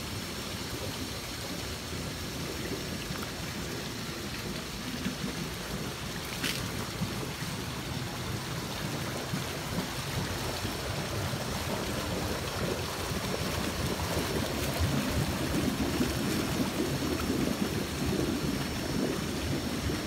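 Water splashing from pool waterfall spouts and a spa churning with jets: a steady rushing splash that grows louder in the second half.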